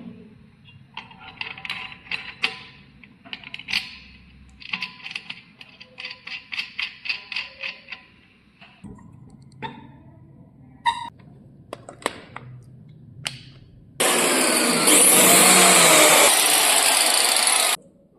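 Clicks and taps, then an electric marble cutter (handheld angle grinder) switches on suddenly near the end and runs loud for about four seconds with a whine, before cutting off abruptly.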